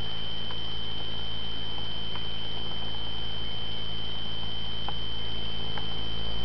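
A steady high-pitched electronic whine over a low hum and faint hiss, with a few faint ticks.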